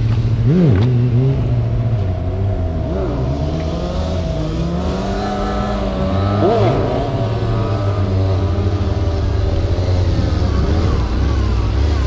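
Honda CBR600F4i sport motorcycle's inline-four engine running steadily, with brief rev blips about half a second in and again around six and a half seconds in.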